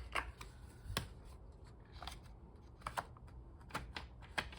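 Planner pages being handled and pressed onto a disc-bound planner's binding discs: scattered light clicks and paper rustles, a few sharper snaps.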